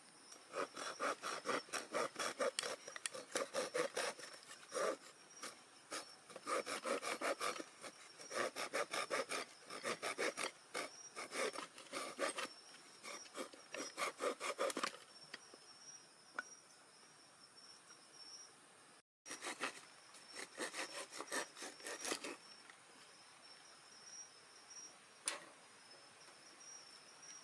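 Firewood being cut by hand with a saw: runs of quick back-and-forth rasping strokes with short pauses, stopping about halfway through, then one more short run. Crickets and other insects keep up a steady high drone throughout.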